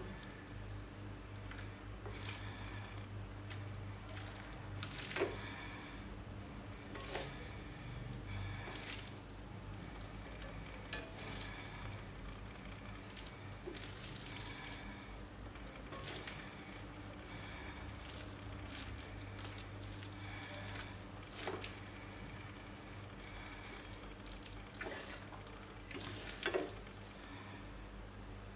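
Black bean noodles sizzling in a metal wok while wooden chopsticks stir and toss them, with scattered light knocks of the chopsticks against the pan over a low steady hum.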